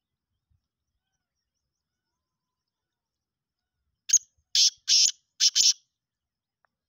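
Black francolin calling: a quick run of about six short, scratchy, high notes over a second and a half, starting about four seconds in.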